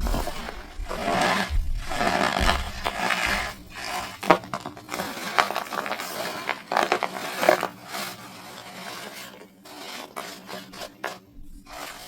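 Compacted cornstarch bricks being crushed and crumbled: a run of dense, grainy crunching with sharp crackles, louder in the first half and thinning out after about eight seconds.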